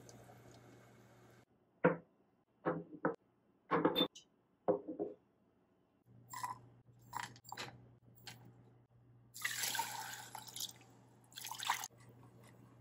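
Small glass jars clinking and knocking against each other and on a hard surface as they come out of sterilising water: a quick run of sharp knocks, then lighter clicks, with water sounds. Near the end come two longer rushes of noise.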